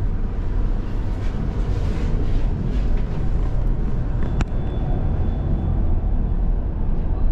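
Electric tram running, heard from inside the passenger car: a steady low rumble, with one sharp click about four and a half seconds in and a faint high tone for about a second after it.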